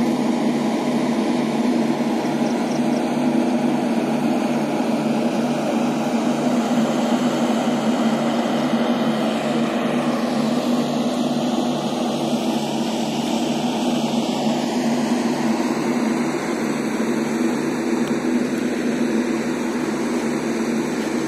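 Passenger train running, heard from inside a moving coach: a steady drone with an even low throb and a noisy rush above it.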